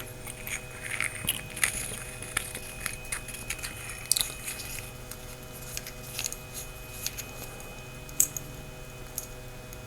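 Small metal flashlight being handled: scattered light clicks and scrapes as a battery is put in and the tail cap is screwed back on, over a faint steady hum.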